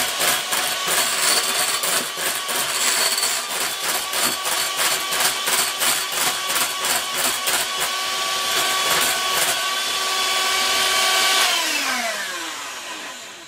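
Electric hand mixer running in a bowl of cake batter, a steady motor whine with rapid clattering from the beaters. About eleven seconds in it is switched off and the whine falls in pitch as the motor spins down.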